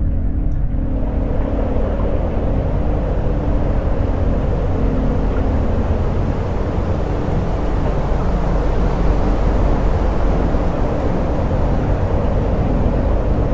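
A loud, steady low rumble with a hiss above it, like a large engine or aircraft drone, filling in during the first second and holding on evenly.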